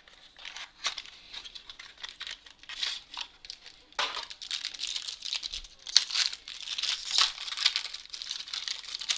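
Crinkling plastic and rustling as trading cards and their packaging are handled, with irregular crackles that grow busier about halfway through.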